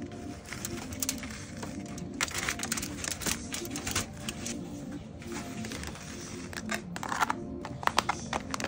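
Aluminium foil crinkling and rustling as it is peeled off a plastic food container, with irregular plastic clicks and taps. Near the end, a cluster of louder clicks as a plastic lid is handled and pressed on.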